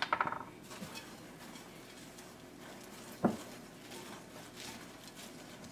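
Faint rustling of a hand mixing crushed pork rinds into flour in a white bowl, with a ringing clink of the bowl at the very start and one dull knock about three seconds in.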